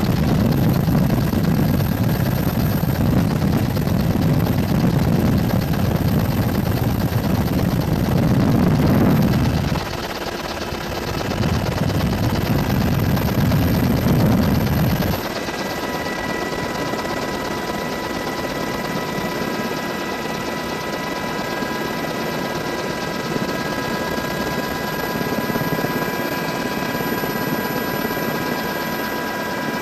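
Helicopter in flight, heard from on board: a steady drone with a heavy low rumble that breaks off about ten seconds in and stops about fifteen seconds in. After that, a steadier hum remains with a few high steady whines.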